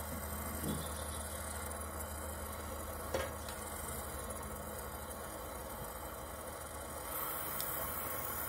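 Gas brazing torch flame hissing steadily as it heats a knife-punctured fridge freezer evaporator for brazing. There is a low steady hum underneath and a single sharp click about three seconds in. The hiss grows a little stronger near the end.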